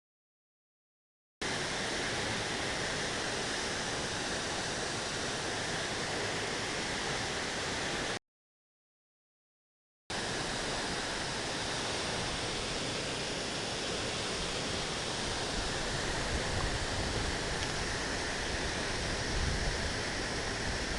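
Waterfall rushing in a steady, even roar of falling water, cut to dead silence twice: briefly at the start and for about two seconds partway through.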